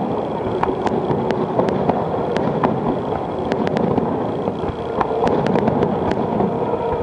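Fireworks display: a continuous low rumble of bursts with many sharp crackling pops scattered throughout.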